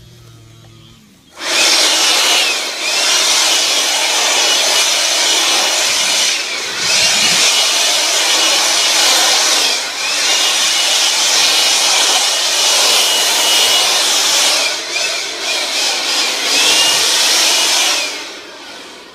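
Cordless handheld leaf blower switched on about a second in, running at full speed with a steady whine over rushing air as it clears grass clippings off concrete. It eases off and comes back up several times, then is switched off near the end.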